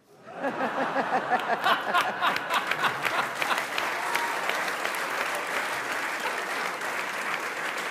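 Audience applauding, swelling in quickly in the first moment and then holding steady.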